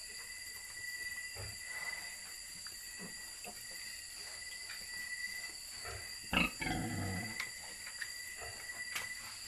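Newborn piglets squeaking and grunting as they suckle and jostle at the sow, with a louder, deeper grunt about six seconds in.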